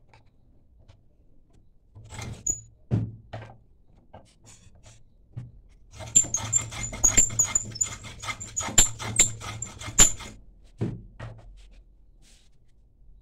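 Hand file scraping a wooden strip clamped in a bench vise: a few separate strokes, then a fast run of strokes lasting about four seconds, then two more strokes.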